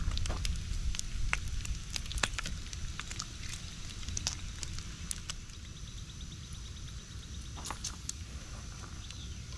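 Bacon crackling on an electric griddle, with scattered sharp pops and clicks as the strips are turned and lifted off. A steady low rumble runs underneath.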